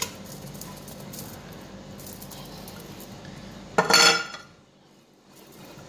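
Metal kitchenware clinking over a sink while canned tuna drains in a stainless mesh strainer. A single loud, ringing metal-on-metal clink or scrape comes about four seconds in, over a low steady background.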